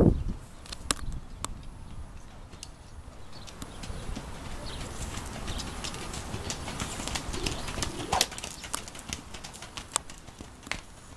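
Hoofbeats of a Rocky Mountain horse moving around a sand arena under a rider, with scattered sharp clicks, a cluster of them about two-thirds of the way through.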